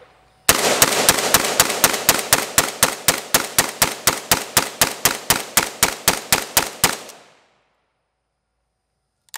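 DPMS Panther Arms Anvil AK rifle fired rapidly: a long, even string of shots, about five a second, that stops about seven seconds in.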